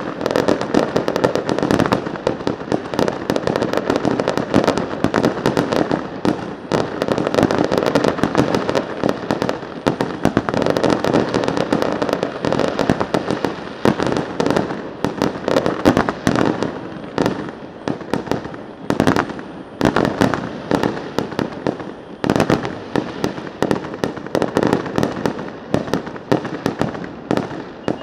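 Fireworks display: a dense, continuous barrage of bangs and crackling that thins in the second half into more separate bangs.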